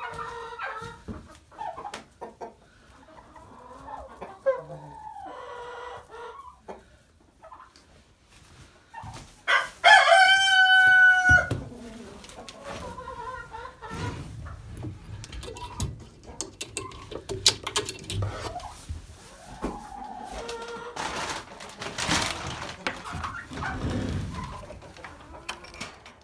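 A rooster crowing once, loud and held, about ten seconds in, with chickens clucking around it.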